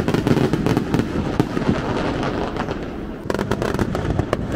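Aerial fireworks bursting: a rapid, dense string of pops and cracks, with a fresh flurry of cracks a little over three seconds in.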